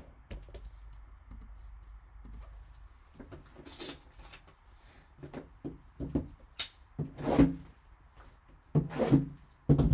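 Handling noise as gloved hands move trading cards and a shrink-wrapped card box: a string of sharp rustles, clicks and knocks, beginning about three seconds in after a faint low hum.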